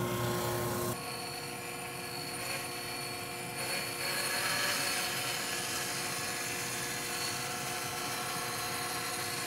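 A drum sander runs for about the first second, then a bandsaw runs steadily, resawing a glued-up mahogany segmented ring into thinner rings. The noise of the cut grows a little a few seconds in.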